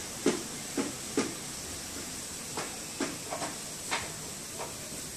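A run of irregular sharp clicks and light knocks, about nine in all and bunched in the first four seconds, over a steady hiss.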